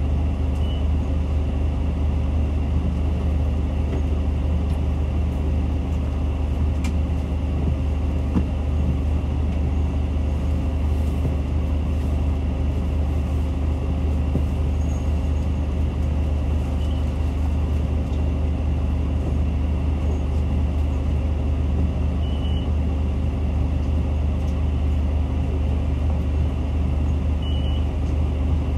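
Nissan Diesel PKG-RA274KAN city bus's diesel engine running steadily, heard from inside the cabin as a constant low drone. A few short high chirps are heard.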